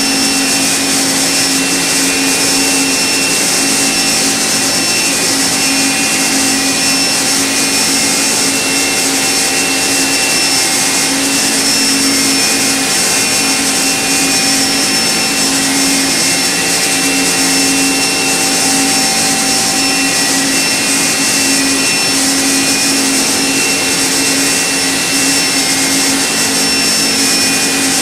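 Okuma MB-5000HII horizontal machining center milling a small workpiece: the spindle and cutter give a steady whine made of several constant tones over an even hiss.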